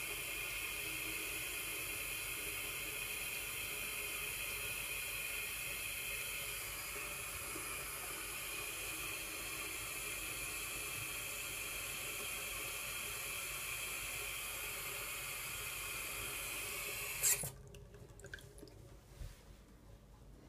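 Bathroom sink faucet running in a thin, steady stream into the basin. About seventeen seconds in, the flow stops suddenly after a brief click, leaving only a few faint taps and rubs.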